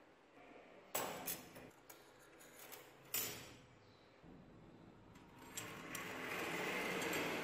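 Loose metal padlock parts (plates, case and shackle) clattering against each other on a table, with sharp clanks about a second in and again about three seconds in. In the second half a sanding block rubs over the metal parts, getting steadily louder toward the end.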